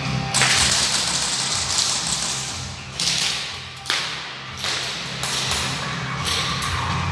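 Background rock music with a steady bass line and several loud crashes, about a second in, near three and four seconds, and again after six seconds, each fading out over half a second to a second.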